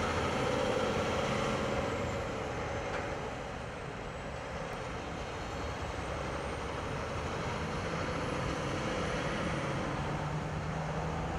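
Heavy-haul semi truck pulling a long multi-axle trailer with an oversize load, its diesel engine running and tyres rolling as it passes along the road, with escort vehicles and other traffic. The low engine sound grows stronger in the second half.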